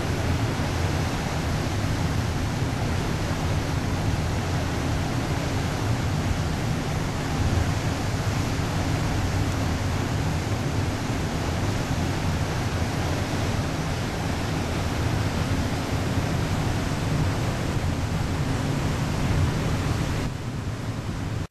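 Steady rushing noise with a low, even hum underneath, as heard aboard a river cruise ship under way. The rushing eases slightly just before the end.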